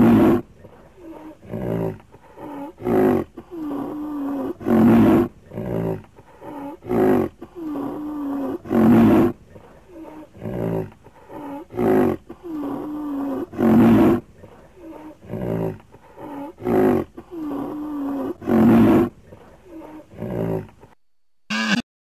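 Sound effect voicing an extinct woolly rhinoceros: a string of loud, rough calls about every two seconds, with quieter, lower pitched calls between them. It breaks off about a second before the end, then gives a few short, sharp calls.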